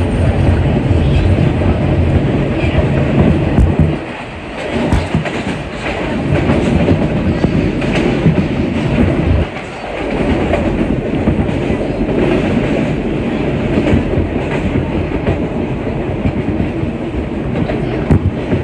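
Alstom R160A subway train running in the tunnel: a steady loud rumble of wheels on rail with scattered clicks, dropping off briefly twice.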